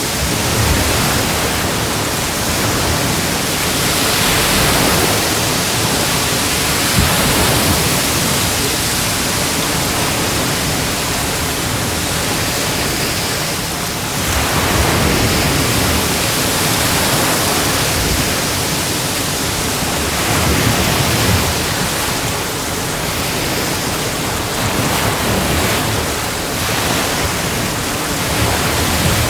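Ocean waves breaking and washing on a shore in a continuous dense rush, swelling a little with each breaker every few seconds.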